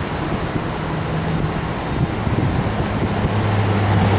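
Wind buffeting the microphone, with a steady low engine hum coming in about three seconds in.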